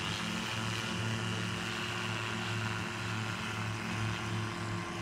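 Engine and propeller of a Savage taildragger microlight running at take-off power, a steady drone as the plane rolls out on its take-off run.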